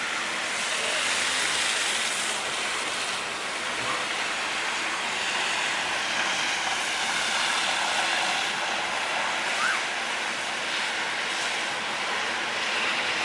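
Steady hiss of city street traffic, tyres running on a snowy road.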